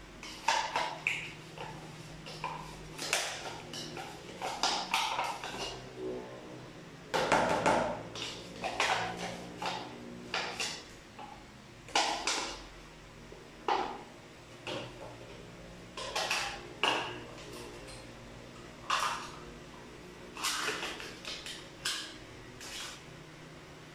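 Metal spoon scraping and knocking inside a plastic yogurt tub while yogurt is scooped out into the mixing bowl: repeated, irregular clinks and scrapes.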